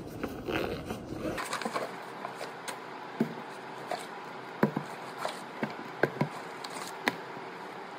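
A canvas backpack being unpacked: cloth rustling, then a string of sharp knocks as thick textbooks are pulled out and set down on a desk.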